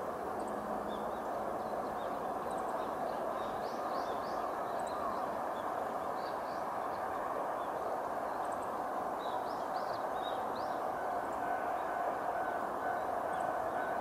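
Steady distant running sound of a Kanto Railway KiHa 2100-series diesel railcar approaching down the line, with small birds chirping in short high calls throughout. Near the end a faint pulsing tone joins in.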